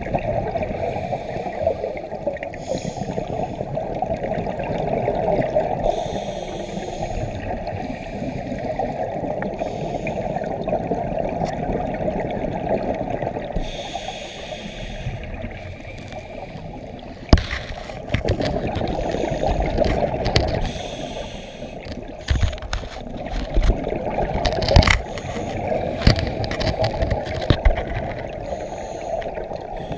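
Scuba breathing heard underwater through a GoPro housing: a steady muffled rush of regulator bubbles, with a brief hiss every several seconds. From about halfway there are sharp knocks and scrapes.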